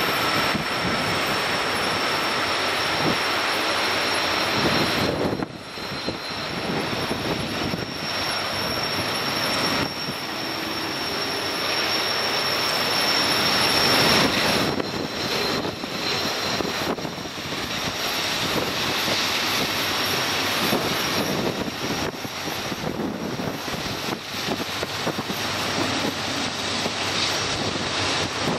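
BNSF GE diesel-electric freight locomotives working toward and past the trackside, engines running loud and steady, loudest as the lead units draw near about halfway through.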